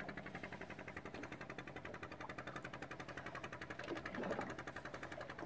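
Boat engine idling with an even, rapid chugging of about ten pulses a second over a steady low hum.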